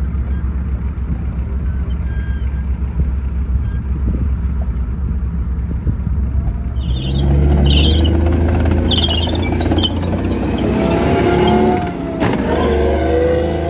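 Heavy off-road vehicle engine running with a steady low drone. It grows louder about seven seconds in, with several short high squeals.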